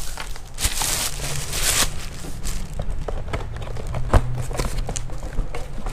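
Plastic bag rustling, then clicks and knocks of a cardboard box being handled, with one sharp knock about four seconds in, over a steady low hum.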